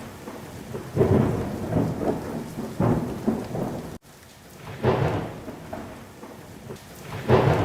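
Storm sound effect: steady rain with a surge of thunder every couple of seconds. The sound briefly cuts out about four seconds in.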